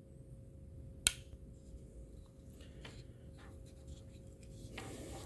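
A single sharp click about a second in as the bottle opener blade of a Victorinox Swiss Army Rescue Tool snaps into its locked open position, followed by a few faint handling ticks and a brief soft rustle near the end.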